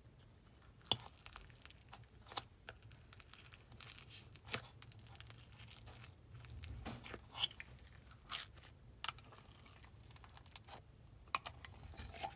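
Soft butter slime made with Daiso clay being stretched and squished by hand, giving a scatter of irregular small crackles and pops: its sizzly texture.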